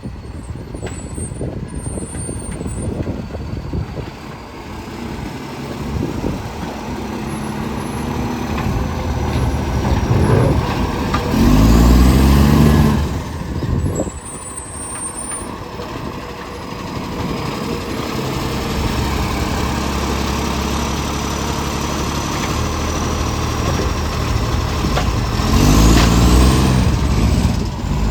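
ACCO garbage truck engine running with an exhaust leak that makes it loud and roaring. It revs up twice, about halfway through and again near the end, the two loudest moments.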